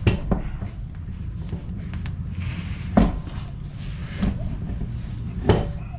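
A few sharp knocks and clunks, spaced about a second and a half to three seconds apart, over a steady low hum.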